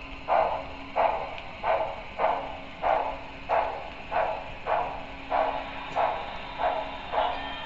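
Simulated steam exhaust chuffing from the sound system of a Broadway Limited Paragon 3 HO-scale 2-10-4 steam locomotive running along the track, an even beat of about one and a half chuffs a second.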